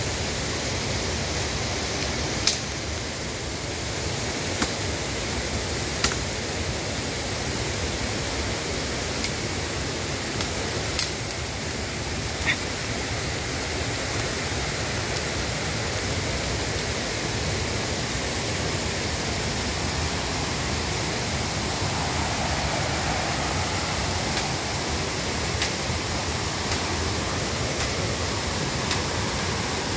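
A river swollen by heavy rain rushing steadily below, with a few sharp snaps of twigs and debris under footsteps scattered through.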